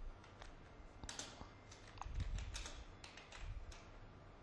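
Typing on a computer keyboard: a run of faint, irregularly spaced key clicks as a short phrase is typed.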